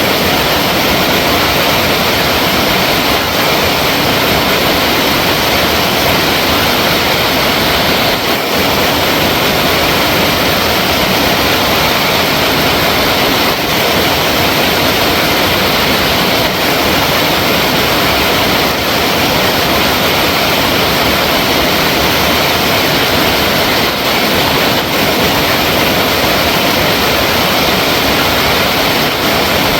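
Flowing water running loudly and steadily, an even unbroken rush.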